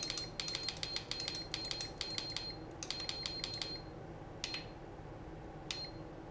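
iMAX B6AC LiPo charger's buttons being pressed over and over, each press giving a short high beep: a quick run of beeps as the charge current and capacity are stepped down, a second short run just after three seconds, then two single beeps.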